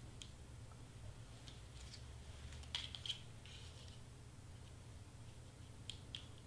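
Faint handling of cut cardstock pieces: light rustles and small sharp taps as paper pieces are moved and set down, with a little cluster of clicks about three seconds in and two more near the end. A steady low hum runs underneath.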